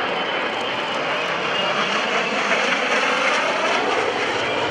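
Jet noise from a MiG-17 fighter's single turbojet engine on a low, fast pass, a steady rushing sound that grows a little louder about halfway through.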